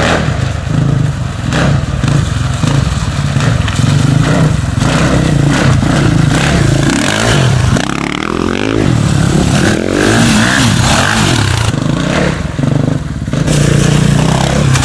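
Four-stroke single-cylinder dirt bike engine running close by, revving up and down in several rising and falling sweeps around the middle as the bike is ridden through the mud bog.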